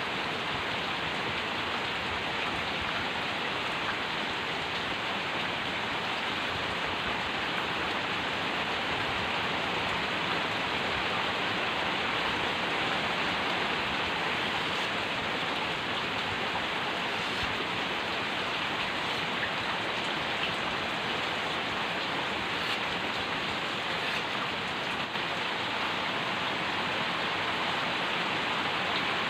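A steady, even hiss that keeps the same level throughout.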